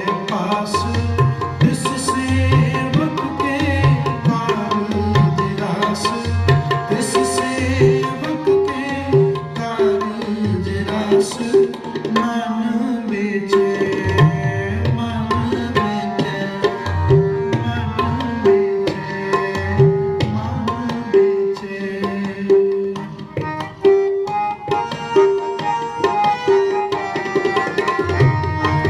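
Tabla playing a steady rhythm, the bass drum's low strokes bending in pitch, under a melody of held notes in an instrumental passage of Sikh kirtan.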